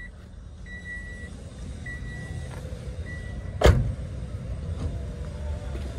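A Toyota Innova's door-open warning chime beeping steadily, about one half-second beep a second, then the car door slams shut a little past halfway and the beeping stops.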